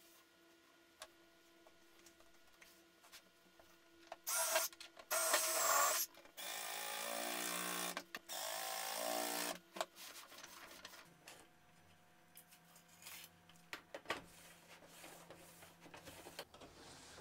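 Cordless impact driver driving screws into an aluminium guide rail: four runs of fast hammering rattle about four seconds in, the last two longer, then light knocks and clicks of parts being handled.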